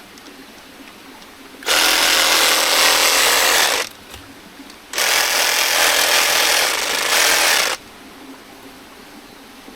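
Reciprocating saw with a pruning blade run twice, about two and three seconds each with a short pause between, cutting hands of bananas off the bunch's stalk.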